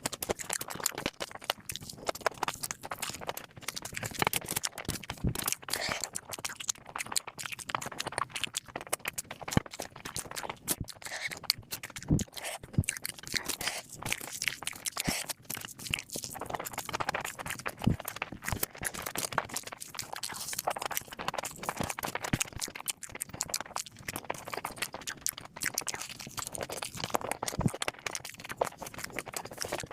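A person eating close to the microphone: continual chewing, crunching and wet mouth clicks, with an occasional sharper knock.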